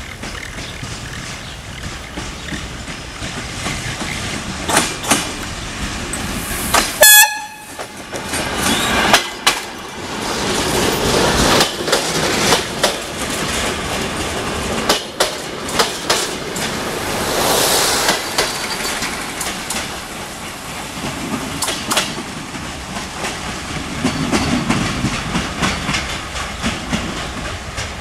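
Ex-Deutsche Bahn diesel multiple unit railcar passing close by: one short, loud horn blast about seven seconds in, then the wheels clacking over rail joints as the cars roll past.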